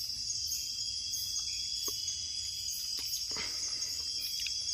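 Night insects trilling in a steady, high-pitched chorus, with a few faint clicks.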